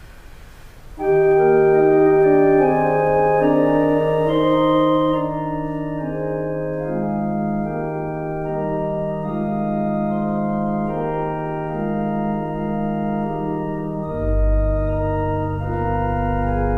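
Church organ playing slow chords of sustained notes, coming in about a second in. Deep pedal bass notes enter near the end.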